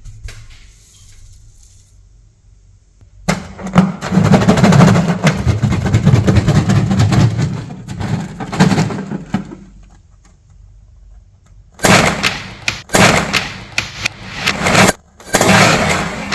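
Electric grinder motor running and churning its contents: one long run of about six seconds starting a few seconds in, then a string of short pulses near the end.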